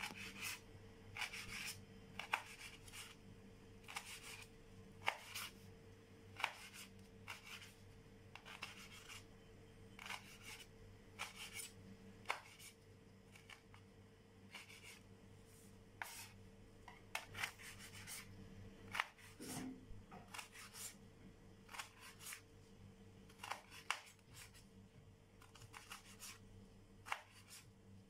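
Chef's knife cutting through soft roasted orange bell pepper and tapping on a wooden cutting board, in irregular strokes, over a faint steady hum.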